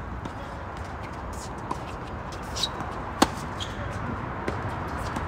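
Tennis rally: a handful of sharp racket-on-ball hits and ball bounces, the loudest about three seconds in, over steady background noise.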